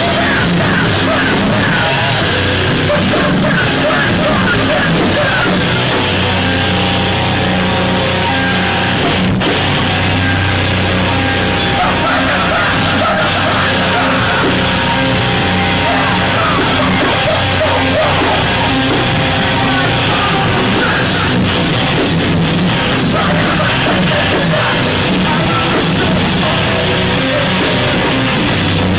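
Hardcore band playing live: distorted electric guitar and drums, loud and dense without a break.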